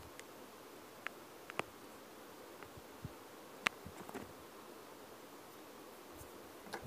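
A few faint, sharp clicks and taps of a plastic Lego minifigure being handled and set down on a wooden table, with a faint steady hiss between them.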